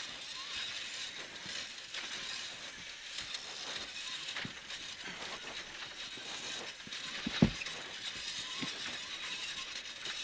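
Cabin noise of a cross-country rally car driving fast on a dirt stage: a steady rush with constant small rattles and clicks. One sharp, loud knock comes about seven and a half seconds in.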